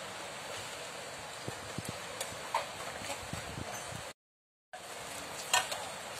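Background noise at a street food stall, an even hiss with scattered light clicks and knocks. The sound cuts out completely for about half a second a little past four seconds in.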